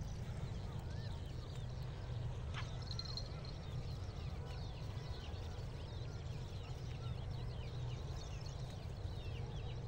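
Many small birds chirping in quick, short calls throughout, over a steady low rumble.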